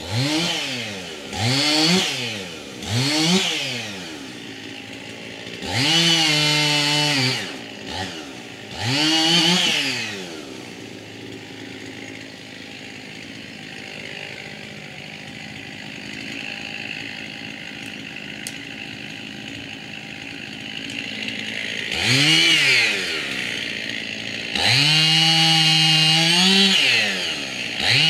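Husqvarna chainsaw revved in quick bursts, held at high revs for a second or two at a time, then left idling for about ten seconds before being revved and run at high revs again near the end.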